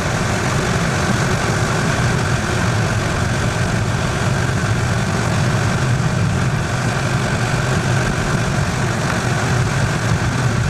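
Steady car engine and road noise heard from inside the cabin while driving on snow-covered roads.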